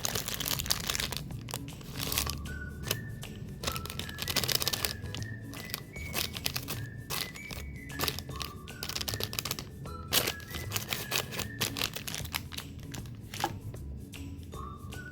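Plastic snack wrapper crinkling and tearing at the start and again about four seconds in, with scattered sharp clicks of handling, over light background music with a high plinking melody.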